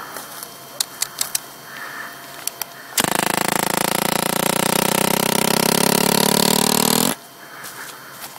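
Rustling underfoot with a few sharp snaps. Then, about three seconds in, a loud, rough buzzing tone starts abruptly, holds for about four seconds with its pitch creeping slightly up, and cuts off suddenly.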